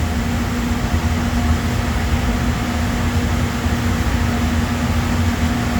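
Steady mechanical drone from running machinery or ventilation: a low rumble with one constant hum tone and an even hiss, unchanging throughout.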